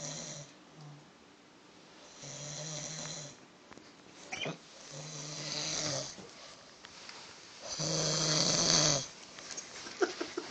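A person snoring in slow, regular breaths, a rasping snore about every two and a half seconds with quiet pauses between. The loudest snore comes near the end.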